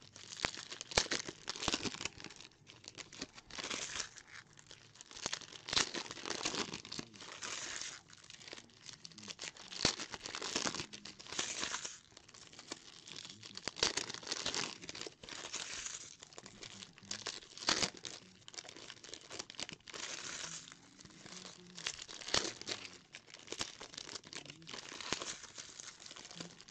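Foil trading-card pack wrappers being torn open and crinkled by hand, in irregular crackling bursts that come and go.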